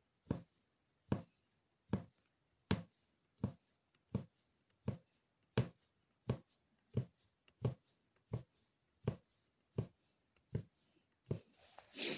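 Punch needle being punched again and again through fabric stretched taut on a frame, one soft thump per stitch, about one every 0.7 s. Near the end comes a louder rustle.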